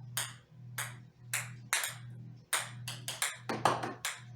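Ping pong balls bouncing on a hard floor: a string of sharp, light clicks, the bounces coming faster together near the end, over a steady low hum.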